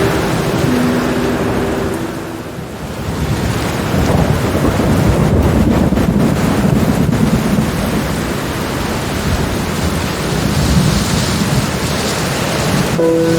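Steady rain with rolling thunder: a low rumble swells a few seconds in and slowly fades. Soft sustained music notes die away at the start and return near the end.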